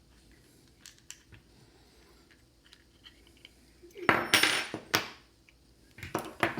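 A few light metal clicks, then about four seconds in a loud clatter of metal on metal lasting about a second, and a shorter clatter of clinks near the end: a brass padlock and small hand tools being handled and set down during disassembly.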